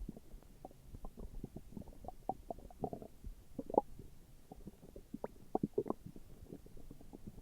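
A human stomach growling: an irregular run of short gurgles and squeaky rumbles, with the loudest squeals a little over halfway through.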